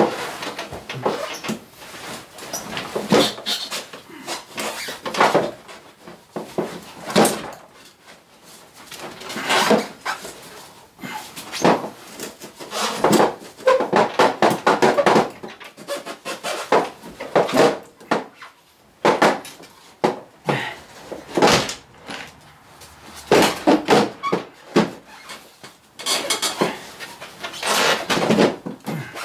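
Snowmobile track and rear skid being worked out of the chassis by hand: irregular knocks, clunks and scrapes, with hard breathing from the effort.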